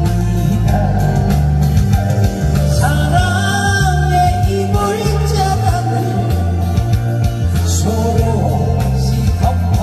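Loud amplified music with a heavy bass line stepping from note to note and a melody line over it.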